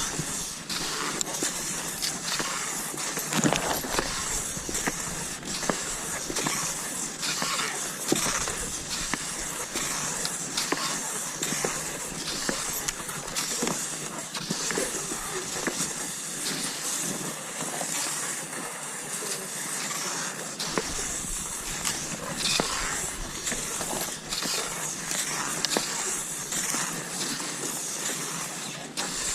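Cross-country skis sliding over snow: a continuous hiss with many irregular crunchy scrapes and clicks, and an occasional low thump.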